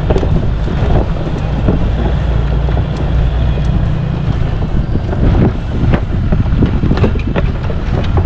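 Jeep driving an off-road trail: a steady low rumble of engine and tyres with wind buffeting the microphone, and a series of knocks and rattles in the second half as it goes over rough ground.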